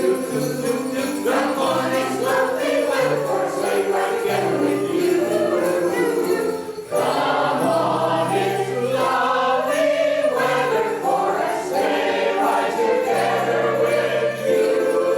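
Singing voices with jingling sleigh bells over a bass line, part of a sleigh-bell song medley; the music drops out briefly about seven seconds in.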